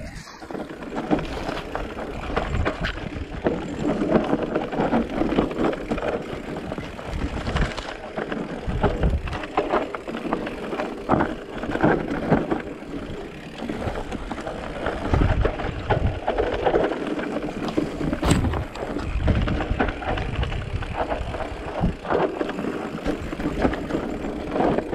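Giant Reign E+ electric mountain bike ridden over a dirt forest trail: tyres rolling over dirt and leaves, with irregular knocks and rattles from the bike over bumps and wind on the microphone.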